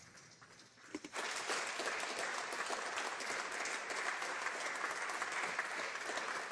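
Applause from a room of many people, starting suddenly about a second in and holding steady as a dense patter of hand claps, greeting the end of a speech.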